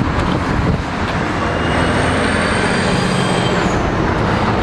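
Steady road noise of diesel trucks running and highway traffic passing, a constant rumble.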